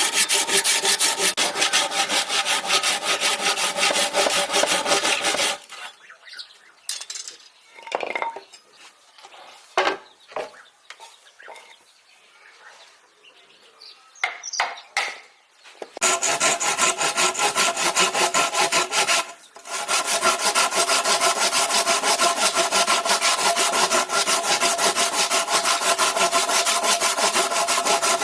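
Saw cutting through wood in rapid, even rasping strokes. About five seconds in it stops for some ten seconds, leaving only a few scattered knocks and scrapes, then resumes with a brief break near the end.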